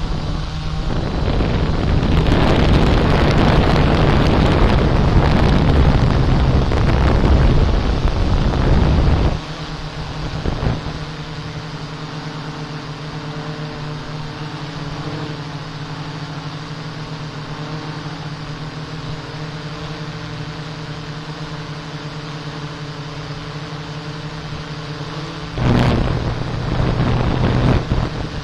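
Camera drone's propellers and motors humming steadily at a fixed pitch, with louder rushing noise over it from about a second in to about nine seconds, and again near the end.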